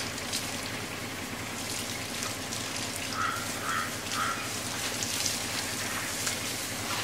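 Water running from a hose and splashing over a baby elephant and onto a wet concrete floor and into a bucket, a steady even splashing.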